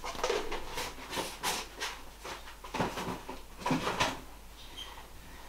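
Kitchen handling noises while a marinade is prepared: a quick run of clicks, knocks and scrapes, several a second, quieter after about four seconds.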